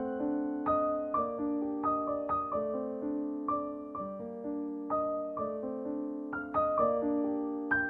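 Background piano music: single notes and chords struck at an unhurried, even pace, each one ringing and fading.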